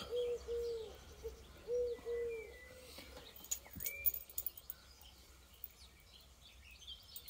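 A pigeon cooing, a run of six low, short coos in the first three seconds, with a couple of brief, higher chirps from a small bird.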